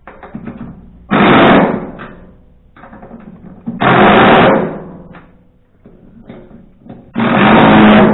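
Power driver tightening bolts on a wood chipper, with three short loud bursts about three seconds apart, each under a second long, and light clatter between them.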